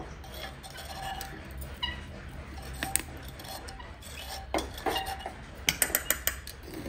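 A metal spoon clinking against a small steel bowl as it is stirred, in scattered clinks with a quick run of taps near the end.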